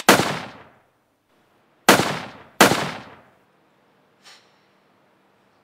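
Three pistol gunshots echoing off concrete: one, then two more in quick succession nearly two seconds later, each ringing away over most of a second. A faint short sound follows a little over a second after the last shot.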